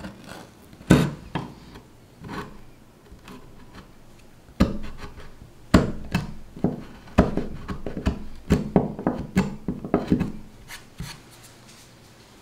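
Hand chisel cutting waste out of a groove across a wooden board, giving irregular sharp cracks, one about a second in and then a busy run of them through the middle and latter part.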